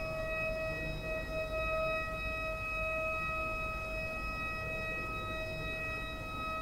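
Pipe organ holding one steady chord of several sustained notes.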